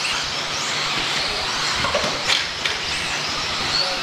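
Several electric 1/10-scale 2wd RC buggies racing on a clay track: motors whining, rising and falling in pitch as they speed up and slow down, over a steady hiss of tyres on dirt, with a couple of sharp clicks about halfway through.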